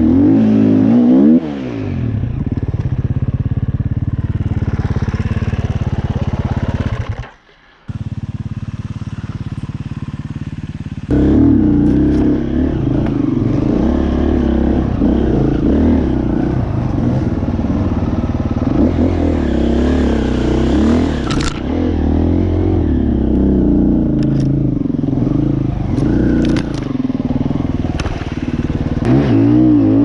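Dirt bike engine running on an off-road trail, its revs rising and falling as the throttle is worked. The sound breaks off briefly a little past a quarter of the way in, then comes back louder.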